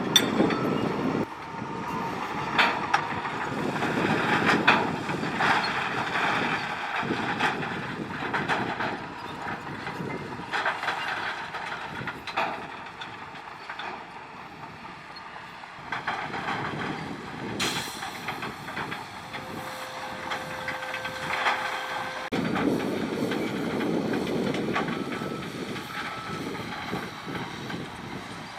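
Shantui crawler bulldozer working stones: a diesel engine running under load, with repeated metallic clanks from the tracks and stones knocking and clattering. The low engine rumble is heavier at the start and again from about two-thirds of the way in.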